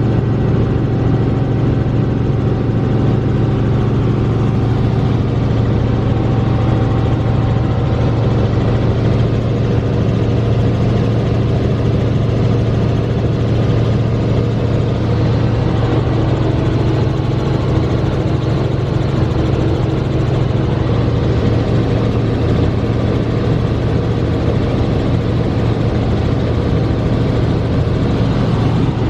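Helicopter in flight heard from inside the cabin: a loud, steady drone of rotor and engine that holds an even pitch throughout.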